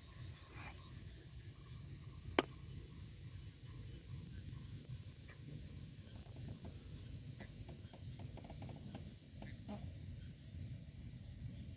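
Night insects chirping faintly, a high, evenly pulsed trill at about four pulses a second, over a low rumble. One sharp click sounds about two seconds in.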